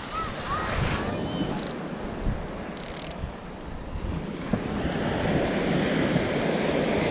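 Ocean surf breaking and washing up a sandy beach, with wind buffeting the microphone. The wash grows louder from about halfway through.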